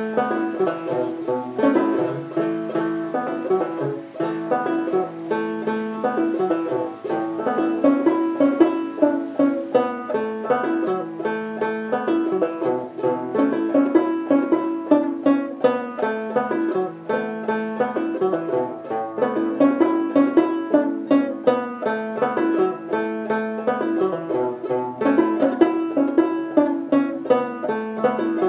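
An 1880s Dobson five-string banjo in eAEAB tuning playing a tune, a continuous, even run of quickly plucked notes.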